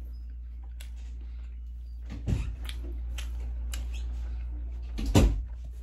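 Close-miked eating sounds: small clicks and mouth noises of chewing, with two dull knocks, one about two seconds in and a louder one near the end, over a steady low hum.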